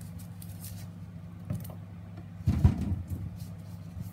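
Vegetables being handled in a plastic colander: light knocks and rustles, with a heavier thump about two and a half seconds in, over a steady low hum.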